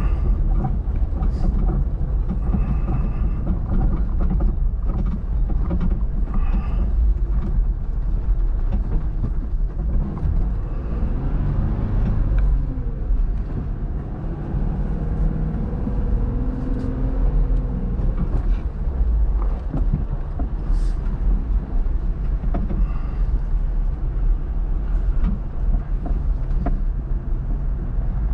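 Off-road vehicle driving: a steady low rumble with occasional short knocks.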